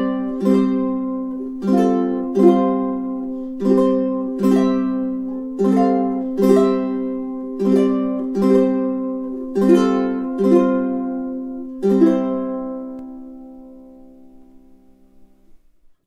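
Kala KA-ATP8-CTG 8-string tenor ukulele, with a solid cedar top and acacia body, strumming a slow chord pattern of about a dozen strums. Its doubled strings give each chord a chiming ring. The final chord, near the end, is left to ring and fades away over a few seconds.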